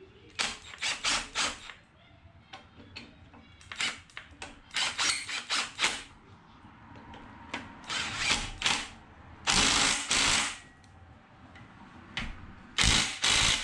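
Hand socket ratchet clicking in repeated bursts as 14 mm bolts are run in and tightened, fastening a cast iron bracket to a Honda D16 aluminium engine block.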